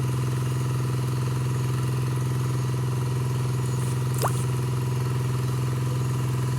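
Small engine running at a steady speed, with a short falling squeak about four seconds in.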